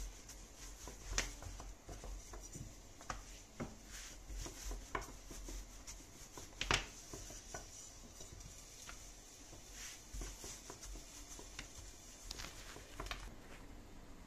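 Long, thin wooden rolling pin rolling lahmacun dough on a silicone pastry mat: soft rubbing with scattered light knocks of the pin, the loudest about a second in and again a little past the middle.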